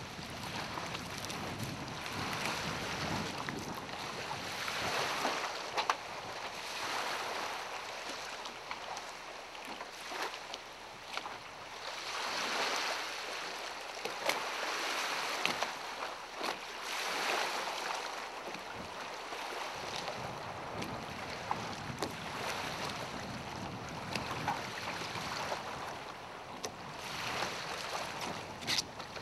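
Small waves lapping against a moored sailboat's hull and the shore, with wind on the microphone; the water noise swells and fades every two seconds or so, with a few faint clicks.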